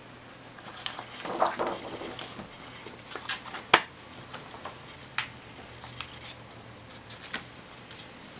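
Thin plastic screen-protector film being handled and its backing worked loose: a crinkling rustle about a second in, then scattered sharp clicks and taps of the stiff sheet, the loudest a little before the middle.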